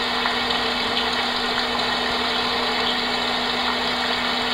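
Homedics SoundSpa Rejuvenate sound machine playing its rain track: an even, unbroken hiss of simulated rainfall through the unit's small speaker, with a low steady hum beneath it.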